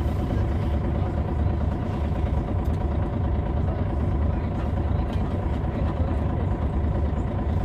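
Interior sound of a MAN A20 city bus, its MAN D2866 six-cylinder diesel running with a steady low rumble.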